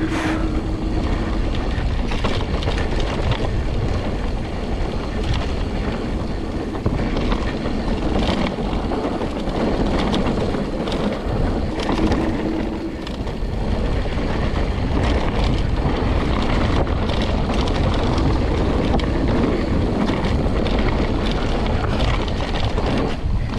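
Mountain bike descending a dirt trail: wind buffets the microphone while the tyres run over the ground and the bike rattles with many small clicks and knocks.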